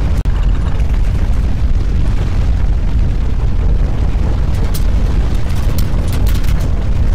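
Loud, steady low rumble picked up by an outdoor camera's microphone, with a scattered run of sharp crackles and rattles in the last two and a half seconds.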